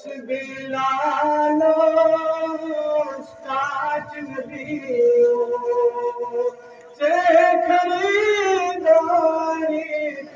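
A man singing a Kashmiri naat, a devotional song in praise of the Prophet, in long, held, ornamented phrases, with a brief pause about six and a half seconds in.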